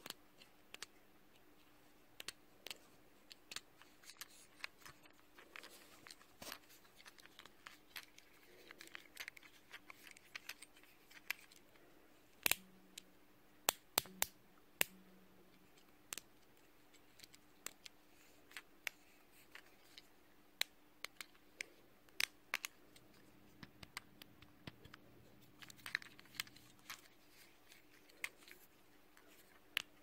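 Soft tapping and button clicks close to the microphone, irregular single clicks and short clusters, a few sharper ones about halfway through, over a faint steady hum.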